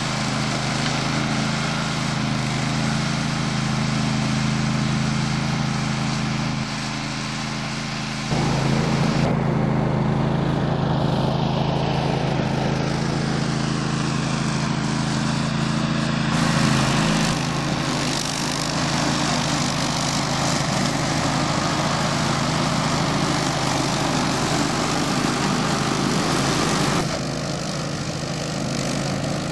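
Grillo Climber 9.21 ride-on mower running steadily as it cuts long grass on a slope, an even engine hum with the whir of the cutting deck. The sound jumps abruptly in level a few times.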